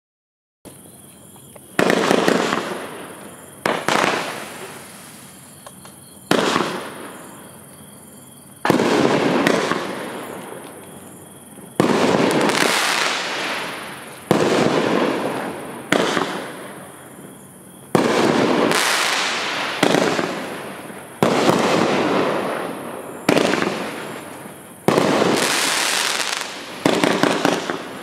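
Consumer firework cake (Hot Fireworks 'High Flyer') firing shot after shot. There are about a dozen sharp bangs, roughly one every two seconds, and each fades away over a second or two before the next.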